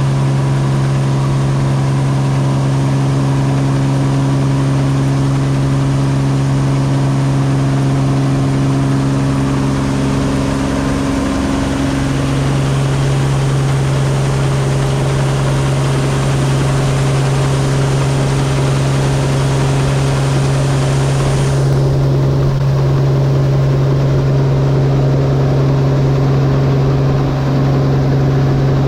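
Claas Dominator 85 combine harvester running steadily under load with an even, pitched drone. The high hiss above it drops away abruptly about three-quarters of the way through.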